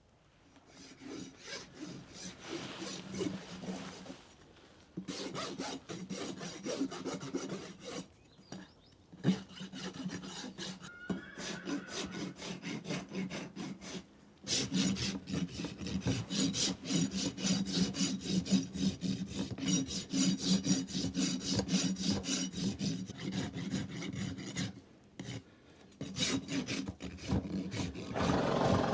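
Farrier's rasp filing a horse's hoof in fast, repeated scraping strokes, in several bouts with short pauses between them.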